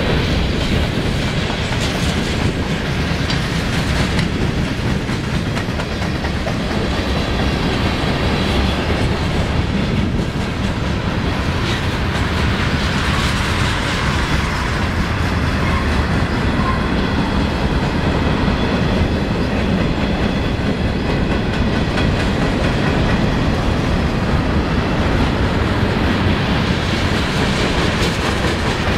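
Freight train cars (covered hoppers and tank cars) rolling past, with a steady rumble and wheels clicking over rail joints, and a faint high squeal from the wheels.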